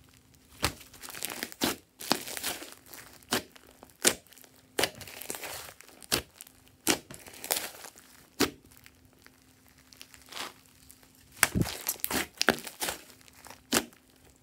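Thick slime with small foam beads being squeezed, pressed and stretched by hand, giving irregular sharp pops and crackles as trapped air pockets burst, with softer squishing and stretching sounds between.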